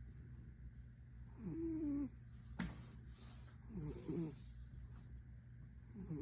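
Maine Coon cat snoring in its sleep: a short, raspy, pitched snore on each breath, about every two seconds, three in all. A single sharp click falls between the first two snores.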